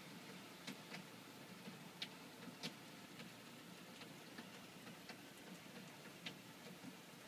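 Heavy rain heard through closed window glass: a faint steady hiss with irregular sharp ticks of drops striking the pane.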